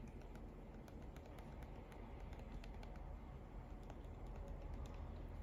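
Faint, irregular small clicks of an Olympus C755 digital camera's arrow buttons pressed by thumb to scroll through its menu.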